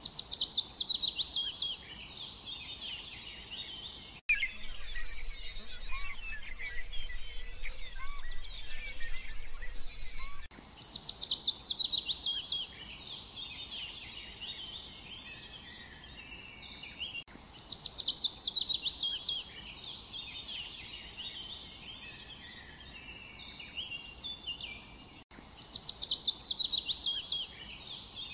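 Wild birdsong: a fast run of high notes falling in pitch, heard four times, with scattered chirps from other birds over a steady background hiss.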